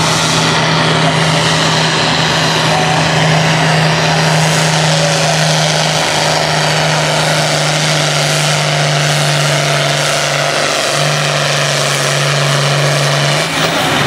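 John Deere 4020 tractor's six-cylinder engine running loud and steady at full throttle as it pulls a weight sled down the track. Near the end the engine note drops as the throttle comes off.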